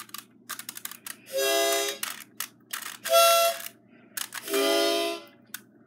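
Harmonica blown in three held chords about a second and a half apart, the middle one loudest, with light clicks in between.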